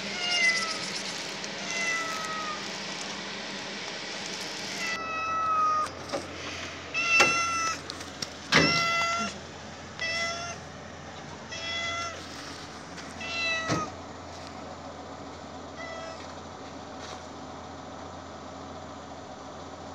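Stray cat meowing repeatedly: about ten calls a second or two apart, then only one faint call near the end.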